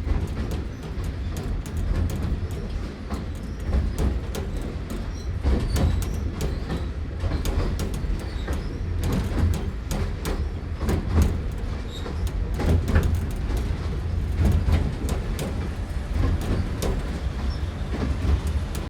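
Riding in the open carriage of a small narrow-gauge steam train under way: a steady low rumble of the running train, with frequent sharp clicks, knocks and rattles from the wheels and carriage.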